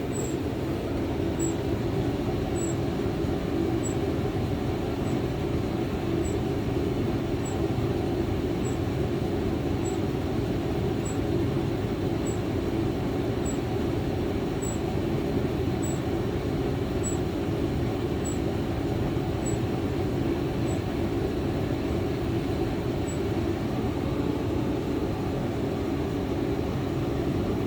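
Hotpoint TL51 running with a steady rumble, and a short high-pitched squeak repeating about once every 1.2 seconds, the squeaking fault the owner is trying to trace. The squeaks fade out a few seconds before the end.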